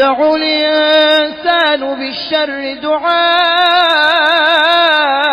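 Solo Quran recitation in a melodic tajweed style: one voice holds long drawn-out notes, with a wavering ornamental run about four seconds in.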